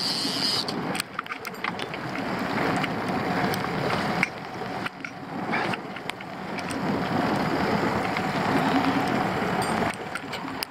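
Suzuki outboard motor running steadily as the canoe trolls through choppy water, with wind noise over it.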